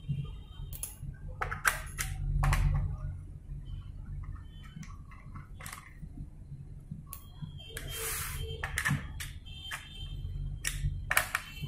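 Screwdriver work on a Dell laptop's plastic base: scattered small clicks and scrapes as screws are turned out, with a few light metallic pings as screws are set down. A low steady hum runs underneath.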